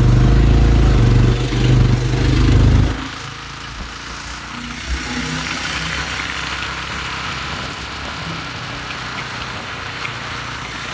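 Motorcycle running at road speed with wind on the microphone: loud and low for the first three seconds, then a steadier, quieter engine and road noise.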